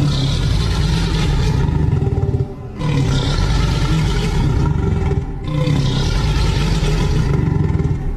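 Dinosaur roar sound effects: three long, deep, rumbling roars, one after another, each about two and a half seconds long.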